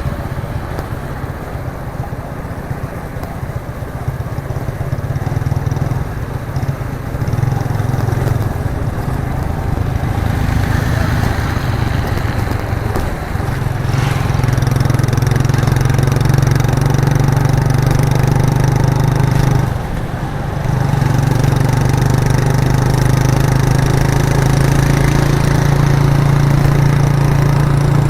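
Raw exhaust of a 1998 Suzuki GN125's single-cylinder four-stroke engine running under way. It builds steadily over the first half, dips briefly about two-thirds through, then runs steady again.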